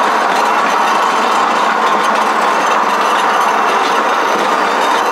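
Rail cycle rolling along railway track: its wheels running on the steel rails in a steady metallic rumble, with the rattle of the frame and the pedalled bicycles.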